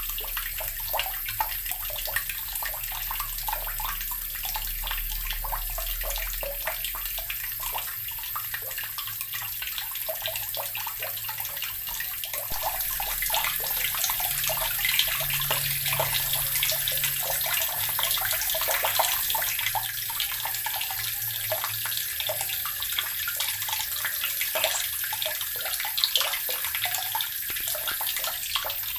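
Water running from a tap and splashing into a basin, a steady stream with small, irregular splashes and a slight rise in level about halfway through.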